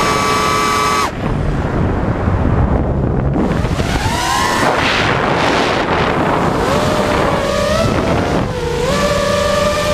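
FPV quadcopter's electric motors whining, their pitch rising and falling with the throttle, over wind rushing across the microphone. The whine drops about a second in, climbs again around four seconds, and rises once more near the end.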